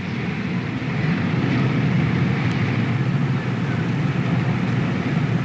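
Steady low rumbling background noise with a hiss over it.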